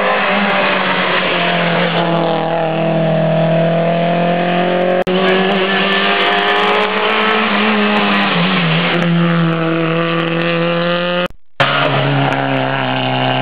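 Historic rally cars driving hard past on a tarmac stage one after another, their engines revving, the pitch climbing and dropping as they accelerate and change gear. The sound breaks off briefly about five seconds in and drops out for a moment near the end, where the footage is cut.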